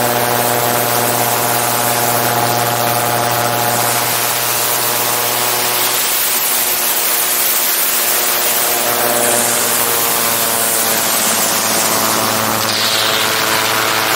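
Gyroplane's engine and pusher propeller running steadily in flight, heard from a camera on the airframe, with wind rushing over the microphone. The engine note shifts slightly about halfway through.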